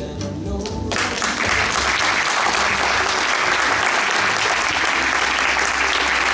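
Audience applauding, breaking out about a second in and holding steady, over background music.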